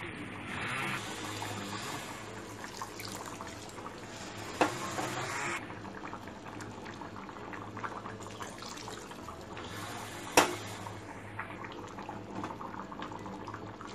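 Coconut milk being poured from a glass into a pressure-cooker pan of sautéed rice, a steady quiet pouring and splashing. Two sharp clicks come about four and a half and ten seconds in.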